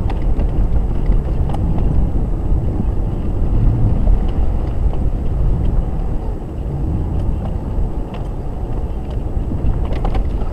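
Steady low rumble heard inside a Jeep Grand Cherokee's cabin as it crawls slowly through a flooded, rocky trail, with scattered light clicks and knocks.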